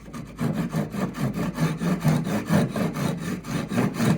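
Hand saw cutting through a 2x4 wood blank in quick, steady back-and-forth strokes, trimming the rough fins off a bandsawn carving blank.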